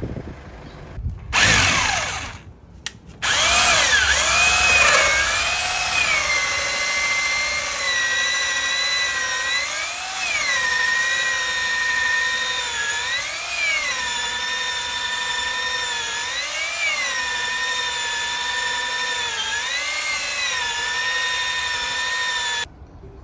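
Power drill boring a hole through a teak door for the lockset. It gives a short burst about a second in, stops, then runs steadily with a whine. Its pitch rises briefly every three seconds or so as the bit cuts the wood, and it cuts off suddenly near the end.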